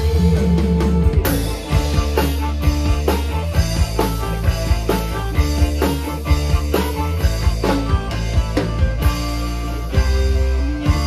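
Live dangdut band playing through a stage PA system during a sound check: drum kit hits in a steady beat over bass, guitar and held keyboard tones.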